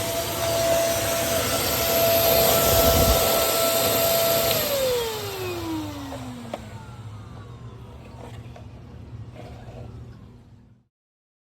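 Electrolux STK15 PowerSpeed Ultra stick vacuum running with a steady whine, then switched off about four and a half seconds in, its motor whine falling in pitch and fading as it spins down.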